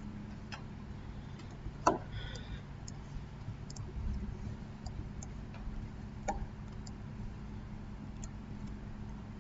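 Computer mouse clicking: scattered, irregular clicks, one louder than the rest about two seconds in, over a steady low electrical hum.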